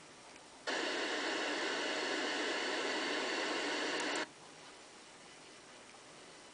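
Weather radio receiver giving a burst of steady static hiss that switches on abruptly under a second in and cuts off just as suddenly about three and a half seconds later, with faint hiss before and after.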